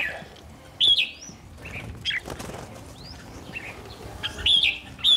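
Caged red-whiskered bulbuls calling: a handful of short, bright chirps and rising whistled notes, the loudest about a second in and near the end.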